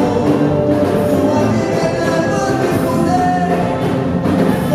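Live gospel praise music: a band playing with a lead singer and backing singers.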